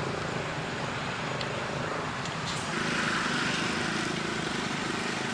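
Steady drone of motor-vehicle engines passing, growing a little louder about three seconds in.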